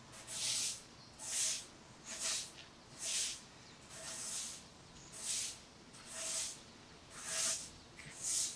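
Rhythmic swishing strokes, about one a second, each a short hiss that swells and fades over roughly half a second.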